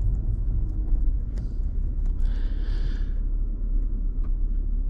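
Steady low rumble of a car driving slowly, engine and road noise heard from inside, with a brief hiss lasting about a second a little over two seconds in.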